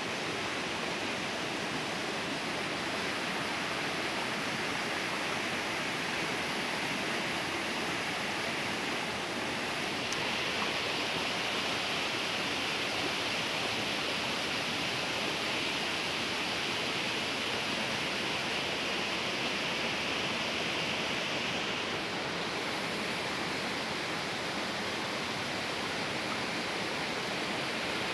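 Shallow stream water running over stones and gravel, a steady rush that turns a little brighter and hissier for a stretch in the middle.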